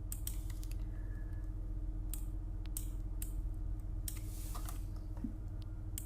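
Scattered light clicks of a computer mouse and desk handling, about a dozen spread unevenly, over a steady low electrical hum from the recording setup.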